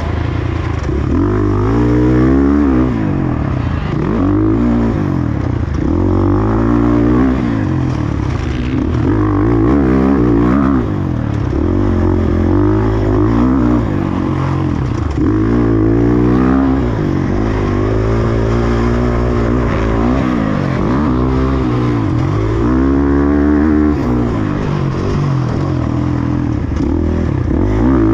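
Motocross bike engine revving hard and backing off over and over, its pitch climbing and dropping every couple of seconds as it is ridden around the track.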